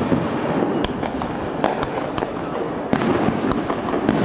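Fireworks display: aerial shells bursting and crackling, a string of sharp bangs at irregular intervals over a constant noisy din.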